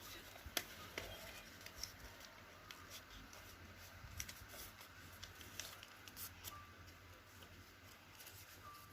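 Faint, scattered rustles and small clicks of a sheet of paper being handled and folded into a paper airplane.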